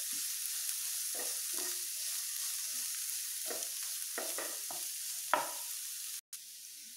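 Chopped onions sizzling in ghee in a non-stick frying pan as a spatula stirs them, with a series of short scrapes against the pan. The sizzle cuts out briefly near the end and is quieter after.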